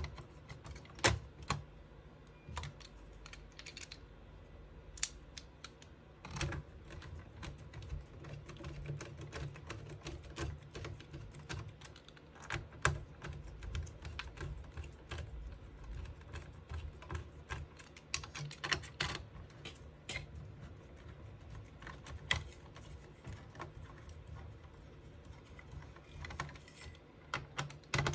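Irregular small clicks and taps of hands and a screwdriver working on the CPU heat sink and blower fan inside an open Dell OptiPlex ultra small form factor PC, as the heat sink is screwed back down. A faint low hum runs underneath.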